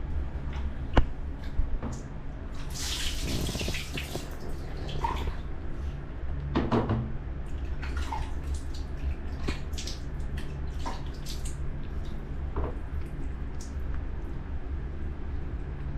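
Water splashing, trickling and being poured from a plastic dipper as a baby monkey is washed by hand in a small tiled bathroom. A sharp knock comes about a second in, and the biggest splashing a few seconds in, all over a steady low hum.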